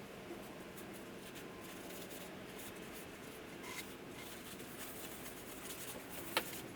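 Quiet handling of metal vise parts and tools: faint scattered clicks and rustles, then one sharp metallic clink with a short ring about six seconds in.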